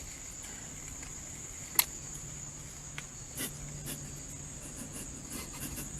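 Quiet background with a steady high-pitched whine and a low hum underneath, and one sharp click about two seconds in.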